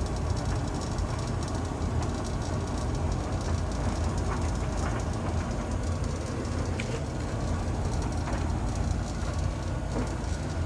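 Blomberg tumble dryer running: a steady low rumble from the turning drum, with brief high metallic scraping squeaks every second or two. The scraping is an abnormal metal-on-metal rubbing noise inside the dryer, a sign of a fault.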